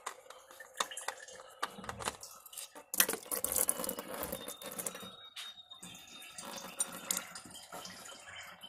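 Engine oil drains from a car's oil pan into a portable drain pan. About three seconds in, the drain plug comes out and the oil starts gushing in a sudden loud splash, then keeps pouring and splattering with small ticks and drips.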